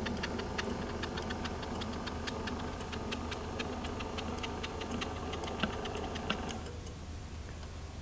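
Estate Swing ES 1000 linear-actuator gate opener arm running closed, its electric motor and drive giving a steady hum with a fast, uneven ticking over it. It stops near the end, this arm reaching its closed limit normally.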